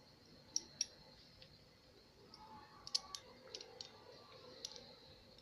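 Faint, sharp clicks, about seven of them scattered irregularly, from small plastic fidget spinners being handled.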